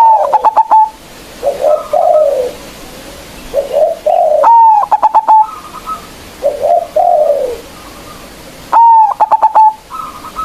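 Zebra dove (perkutut) singing its staccato cooing song: three loud phrases about four seconds apart, each an arched coo followed by a quick run of short clipped notes, with softer coos between them.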